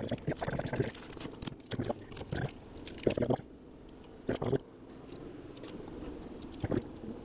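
Metal hive tool prying and levering wooden hive frames apart, a run of sharp cracks and knocks as propolis-glued frames break loose and bump. From about five seconds in, a steady low hum of honey bees.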